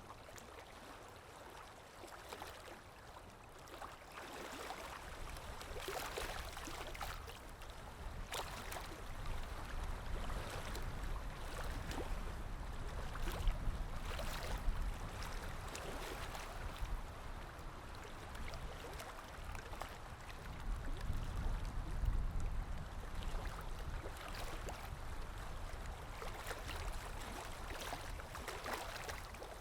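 Sea waves washing in and ebbing away, the noise swelling and falling over a low rumble, with small splashes scattered through it.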